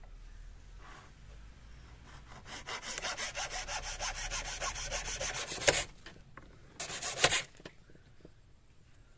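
Hacksaw cutting through a piece of coconut shell in fast, even strokes, about eight a second, starting a couple of seconds in and stopping sharply. After a short pause comes a second brief burst of sawing.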